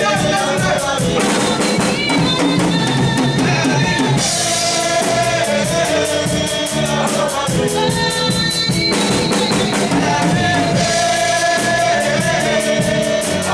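Gospel worship song: singing over a steady drum kit beat.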